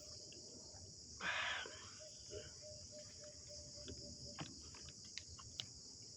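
Steady high-pitched chorus of crickets or similar insects, with a short louder burst of noise about a second in and a few faint clicks.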